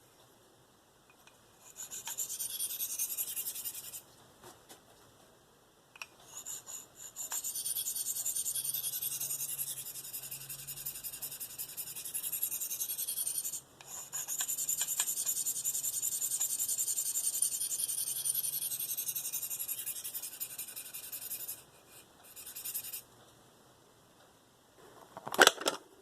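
A V-Toku2 steel knife blade being stroked across a Spyderco 302M medium ceramic sharpening stone by hand: a dry, high scraping in long runs of strokes broken by short pauses. A few sharp knocks near the end.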